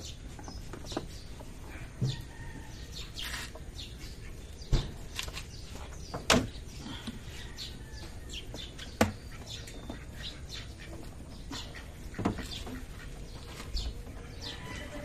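Irregular plastic knocks and clicks, a few of them sharp and loud, as the stock air intake box and its hoses are worked loose and pulled out of a Honda Civic engine bay. Birds chirp faintly in the background.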